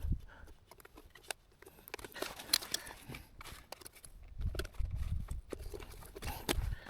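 Scattered light clicks and knocks of handling noise, with a low rumble coming in about halfway through.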